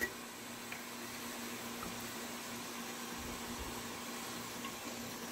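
Steady kitchen hiss with a faint low hum, from the pot of onion-and-berbere paste cooking on the stove or a fan running, with one short click right at the start.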